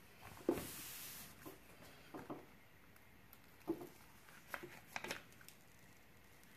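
Paper handling on a diamond-painting canvas: a soft knock about half a second in, then a few brief rustles and crinkles as the corner of the protective paper is lifted and folded back from the sticky canvas.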